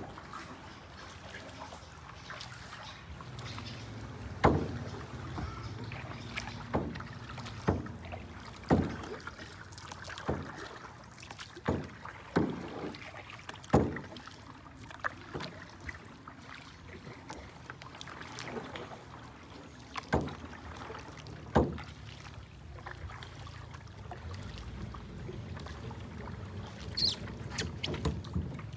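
Kayak paddling: a run of paddle strokes in the water, mostly about a second apart, thinning out after the middle, over a low steady background.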